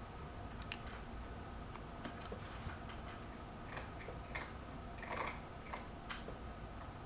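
Faint, irregular soft clicks and taps as fingertips pat and rub eye primer onto the eyelids, over a low steady room hum; a small cluster of clicks a little past the middle is the loudest.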